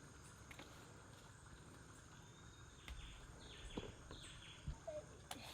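Quiet rainforest ambience: a steady high insect drone, and a bird calling a short run of quick falling whistled notes about three seconds in. A few light knocks fall in between.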